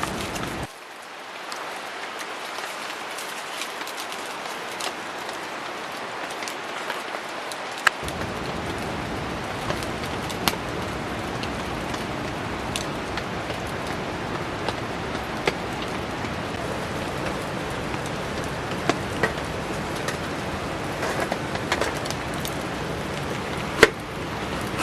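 Heavy rain falling steadily, with scattered sharp ticks and pops through it. Under a second in, the low rumble drops out and returns about eight seconds in.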